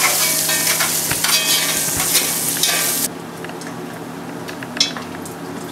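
Bacon sizzling in hot fat in a pot. The sizzle is loud for about three seconds, then drops abruptly to a quieter sizzle, with a few light clicks as a metal spoon works in the grease.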